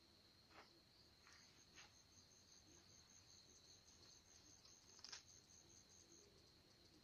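Near silence with faint insect calls: a steady high trill throughout, and a higher pulsing call at about six pulses a second from about a second in until near the end. A few faint clicks, the loudest about five seconds in.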